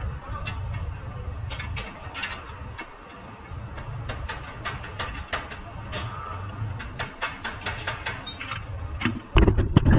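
Metal clinks and knocks from hand work on a car's front brake caliper and steering knuckle, many sharp clicks over a low workshop rumble, with a loud heavier knock near the end.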